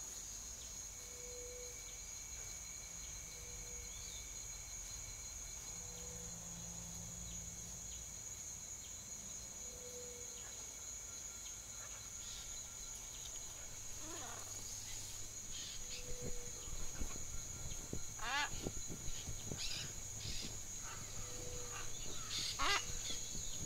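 Faint nature-like soundscape: a steady high insect-like chirring with soft low pips every few seconds. From about halfway on there is a run of short animal calls that rise and fall in pitch, getting louder toward the end.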